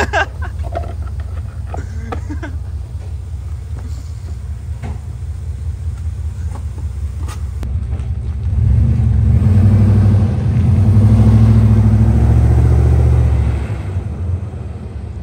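Dodge Dakota Sport pickup's V8 engine running at low speed, a steady low rumble that grows louder about halfway through as the truck drives close by, then eases off near the end.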